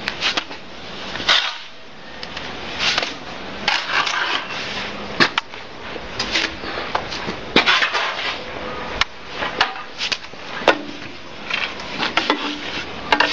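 Irregular scraping with scattered sharp knocks from tools and a bucket handling wet cement-sand mortar, which is being tipped into the hopper of a mortar spraying machine.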